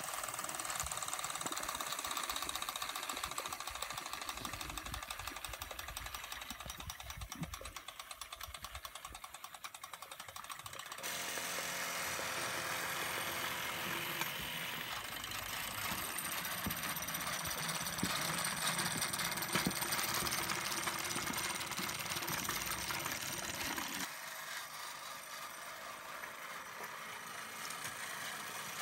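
Small Mamod live-steam engines running, with a rapid, even clatter of exhaust beats from the oscillating cylinders. The sound changes abruptly about 11 seconds in and again about 24 seconds in.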